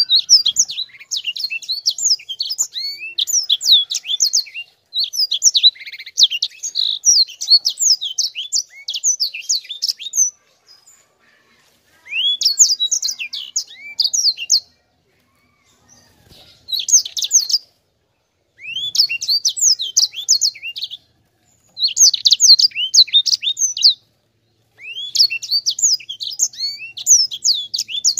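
A caged sanger, a canary-type finch, singing fast, rolling twittering trills. The song comes in phrases a few seconds long, with short pauses between them: one long run of about ten seconds at the start, then shorter phrases.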